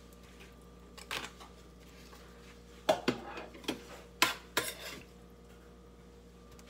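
Metal spoon scraping and clinking against an aluminium foil pan and dishes, in a few short clatters between about one and five seconds in, the loudest near three seconds.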